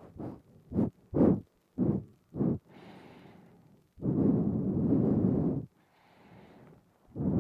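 Nasal breathing right up against a binaural microphone: a run of short, quick puffs through the nose, then a soft inhale and a long exhale of about a second and a half. A second soft inhale and long exhale begin near the end.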